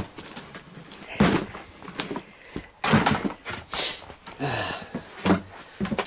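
A man's heavy breathing and short grunts of effort, with scattered knocks and thumps as he moves about in a cramped attic space.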